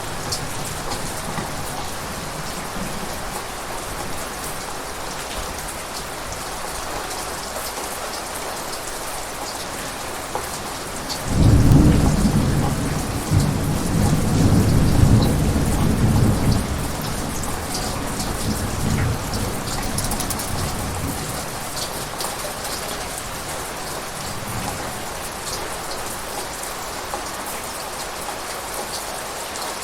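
Steady rain falling, with a clap of thunder a little over a third of the way in that rumbles for about five seconds and then fades away.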